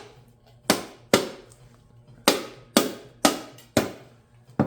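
Lid of a metal gallon paint can being knocked shut: about seven sharp knocks, mostly in pairs half a second apart, each with a short ring.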